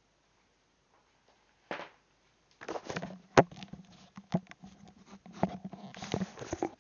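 Handling noise of over-ear headphones being picked up and put on: rubbing, knocks and clicks, with one sharp click about three and a half seconds in the loudest.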